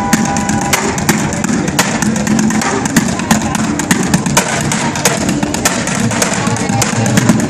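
Street bucket drumming: drumsticks striking a plastic bucket and metal pots in a fast, dense rhythm of sharp hits, over city street noise.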